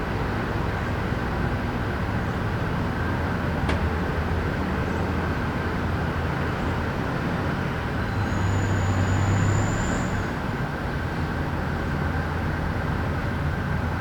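Steady urban traffic hum with a low vehicle engine drone that swells for a couple of seconds past the middle. A single sharp tick comes about four seconds in, and a thin high whine sounds for about two seconds near the loudest part.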